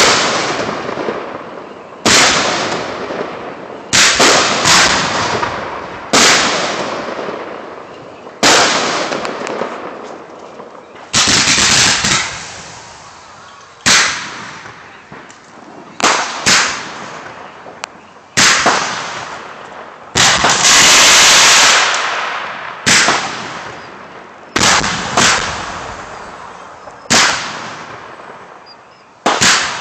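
Fireworks display: sharp, loud shell bursts about every two seconds, each followed by a long echo that slowly fades. About two-thirds through, a steady hiss lasts about a second and a half. Near the end, several bangs come in quick succession.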